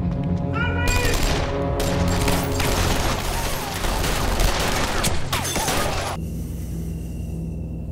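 A sustained burst of rapid gunfire, many shots packed together, starting about a second in and cutting off suddenly about six seconds in, over dramatic music.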